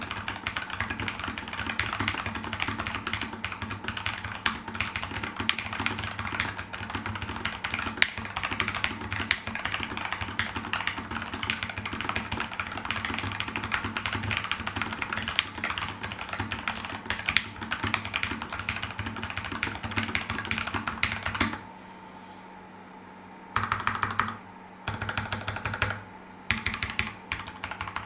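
Nuphy Air 75 low-profile mechanical keyboard being typed on, a lower-pitched keystroke sound. Fast, continuous typing stops about 21 seconds in, followed by three short bursts of keystrokes.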